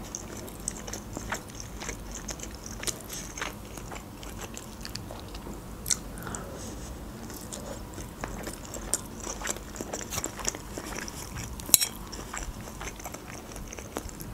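Close-miked chewing of pasta and sausage, with soft wet mouth sounds and scattered small clicks. A sharper click stands out about six seconds in, and the loudest about twelve seconds in.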